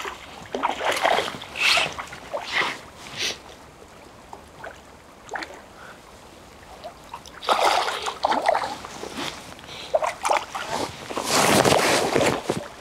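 Hooked smallmouth bass thrashing at the water's surface in irregular bouts of splashing. There is a quieter spell midway, and the loudest splashing comes near the end as the fish is drawn in close.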